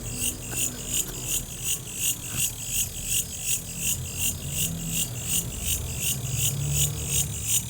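Cricket chirping steadily: high-pitched chirps repeating evenly, about four a second.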